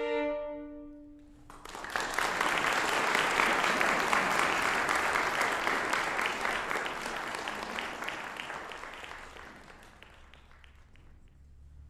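A violin's last held note dies away, then an audience applauds for several seconds, the clapping thinning out and fading near the end.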